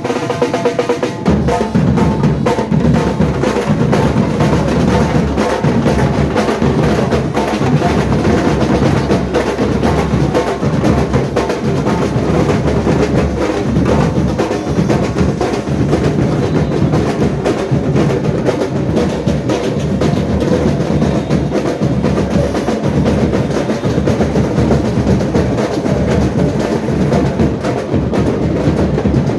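Comparsa percussion band drumming without pause, with snare drums and bass drums playing a driving street-carnival rhythm.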